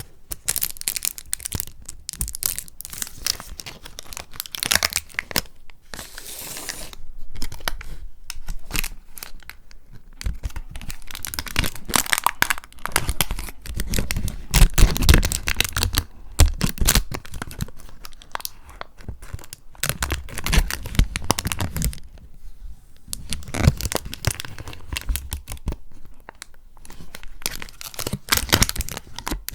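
Paper or packaging being torn and crinkled by hand, in dense, irregular crackles with a couple of short pauses.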